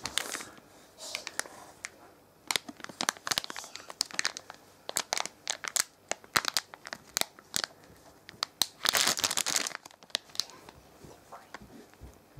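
Plastic snack packaging crinkling and crackling as a bag of long jelly sticks is handled and turned over in the hand. The crackles come in irregular clusters, with a denser, longer rustle about nine seconds in.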